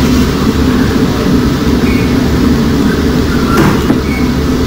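Steady loud rumble of factory machinery, with a single faint click about three and a half seconds in.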